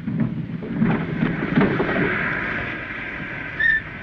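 Thunder-like rumbling with crackles, giving way to a steady hiss, with a short high whistle near the end. This is a vintage TV sound effect for a rainmaker's demonstration.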